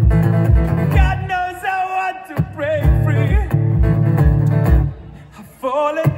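A song with a singing voice over guitar and a steady, pulsing bass beat. The music dips briefly about five seconds in, then comes back.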